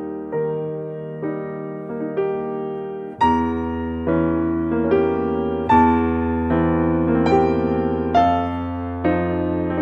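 Background piano music: slow, gentle notes and chords, growing fuller and louder about three seconds in.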